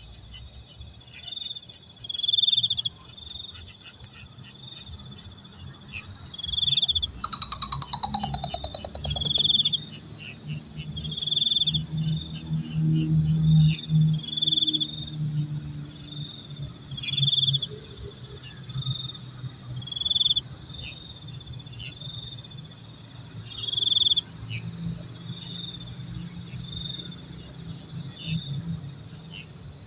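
Crickets and other insects chirping in a steady high drone, with a short, louder high chirp repeating every one to two seconds. About seven seconds in, a rapid pulsing sound falls in pitch over a couple of seconds, and a low rumble swells in the middle.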